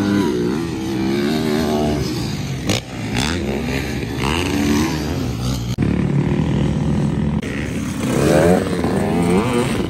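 Dirt bike engines revving, their pitch rising and falling again and again, with a brief break a little over halfway through.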